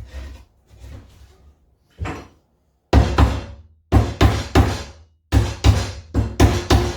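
Hammer tapping the glued wooden sides of a beehive brood chamber together: a run of sharp knocks on timber in quick groups of two to four, starting about two seconds in after a few lighter handling knocks.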